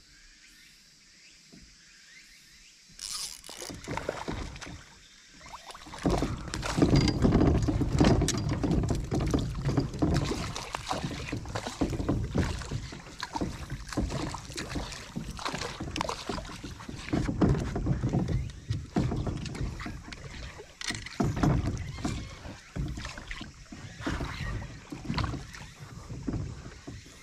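Small hooked fish thrashing at the water's surface, splashing in repeated bursts that start about three seconds in and turn heavy a few seconds later.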